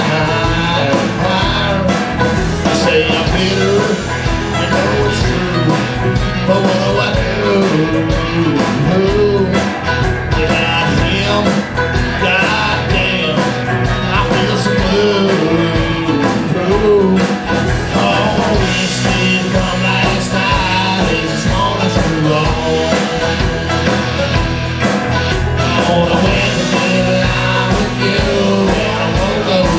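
A band playing a country-rock song live: banjo, acoustic guitars, electric guitar and drums.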